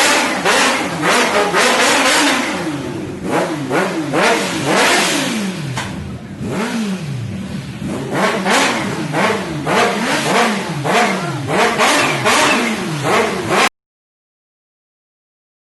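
Kawasaki superbike engine revved hard through its exhaust, the throttle blipped over and over so the pitch rises and falls about one to two times a second. The sound cuts off abruptly near the end.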